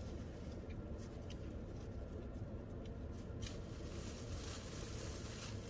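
Faint rustling and small clicks from handling food and a paper napkin, over a steady low hum inside a car cabin.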